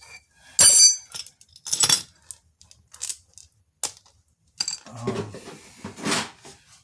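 Steel hand tools clinking and rattling: two sharp, ringing metal strikes in the first two seconds, then lighter clicks and a short rattle near the end.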